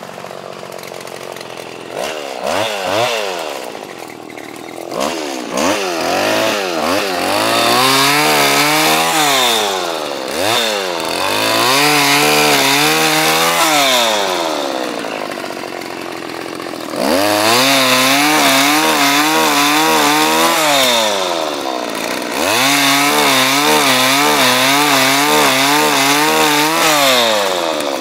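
Engine of a motorised palm cutter (PC 75 pole pruner) revving up several times and holding at high speed for a few seconds each, dropping back toward idle in between, as it cuts oil palm fronds.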